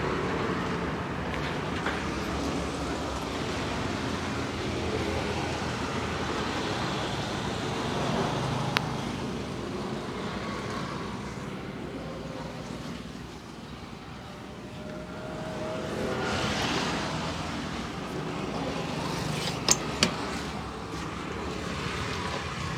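Steady roadside traffic noise, with a few sharp clicks: one about nine seconds in and two close together near the end.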